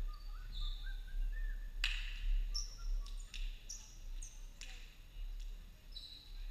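Basketball shoes squeaking on a hardwood gym court during play: many short, high squeaks, some holding pitch and some sliding, with a few sharp thuds on the floor, the loudest about two seconds in.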